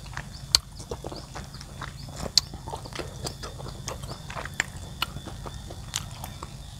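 A person chewing crisp shredded young papaya rujak, with many small sharp clicks and crunches from the mouth. A wooden utensil scrapes and taps on the cobek mortar bowl as he scoops more.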